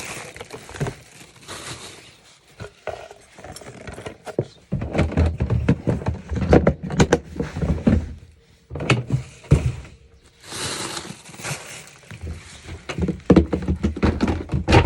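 Cat litter being scooped and sifted: a scoop scraping and knocking through litter, with rattling clicks and short rushes of loose litter granules. The sound comes in irregular bursts.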